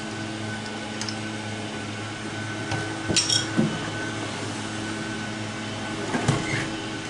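A few light metallic clinks of a wrench and carburetor hardware being handled, about three seconds in and again near the end, over a steady hum.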